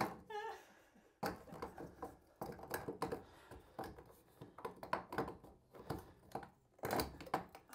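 Irregular knocks, clicks and light clatter of hard objects being handled, roughly one to three a second. A brief squeaky pitched sound comes just after the start.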